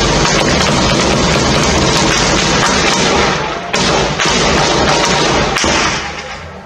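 Long, loud bursts of heavy machine-gun fire at close range, the shots running together, with a brief break about three and a half seconds in and tailing off near the end.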